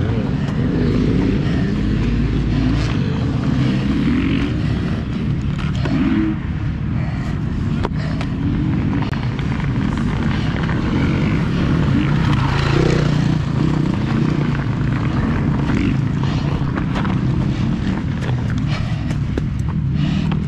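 KTM 85cc two-stroke dirt bike engine revving up and down as the bike is ridden hard around a motocross track, with a few sharp clacks along the way.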